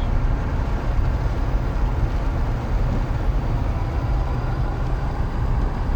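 A moving vehicle's steady low rumble and road noise.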